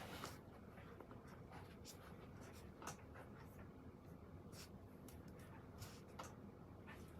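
Faint pen scratching on paper, with scattered light taps and scrapes over a low steady room hum.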